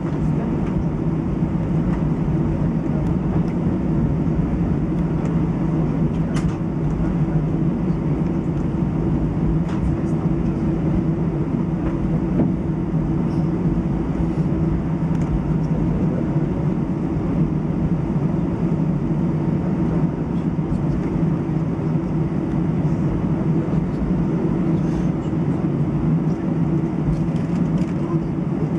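Steady cabin noise of an Airbus A319 taxiing, heard from inside the cabin: the engines running at idle with a low, even hum and a faint steady tone above it.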